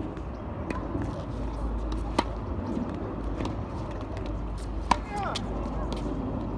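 Tennis balls being struck by rackets: sharp pops about two seconds in and again, loudest, about five seconds in, with a few fainter ones between, over a steady low rumble of outdoor background noise.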